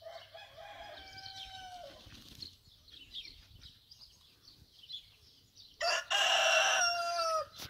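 Roosters crowing back and forth: a moderate crow held on one pitch and falling away at its end in the first two seconds, then a louder crow, held and falling the same way, about six seconds in.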